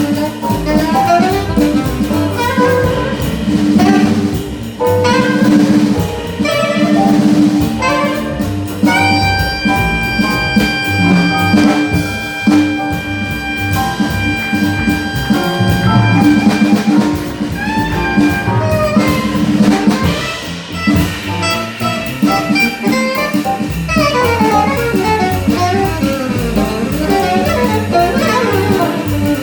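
A small jazz band with alto saxophone, piano, bass and drum kit plays a bebop number. Fast melodic runs are broken by one long held horn note about nine seconds in that lasts some seven seconds.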